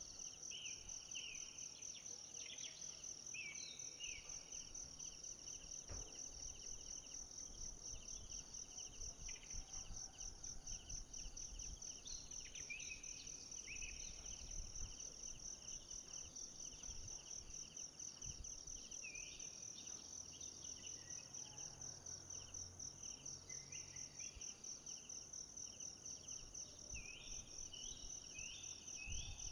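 Faint tropical forest ambience: insects keep up a steady, high, fast-pulsing trill, and short rising chirps come in small groups every few seconds.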